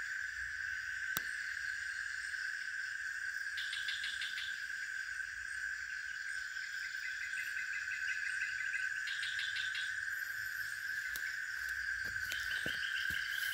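Night-time insect chorus: a steady high-pitched drone, with a few bursts of rapid chirping trills over it and a single click about a second in.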